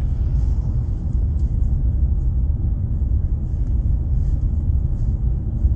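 Steady low rumble with no words, like road and engine noise heard from inside a moving car.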